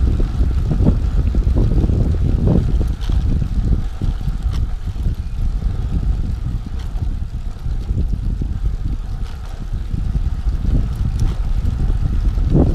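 Wind buffeting the microphone of a cyclist's camera as a loud low rumble that flutters and rises and falls, with bicycle tyres rolling on a concrete path underneath, at about 12 to 16 mph.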